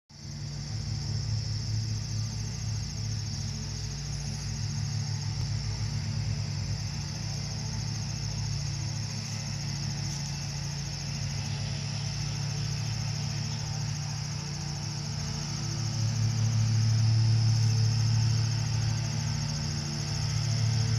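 Insects trilling steadily and high over a continuous low drone, which grows a little louder near the end.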